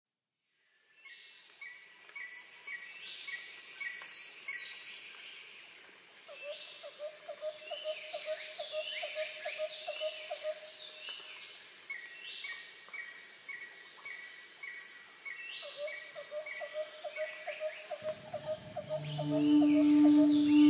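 Nature-sound intro of a song: birds chirping and calling over a steady high insect drone, with stretches of a rhythmic pulsing call. Near the end a low held musical tone comes in and the sound grows louder.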